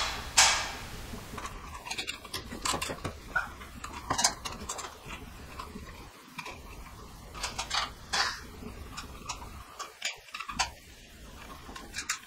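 Electrical wires and their connectors being handled by hand while the conductors are joined: irregular small clicks and short rustles, with a louder rustle right at the start.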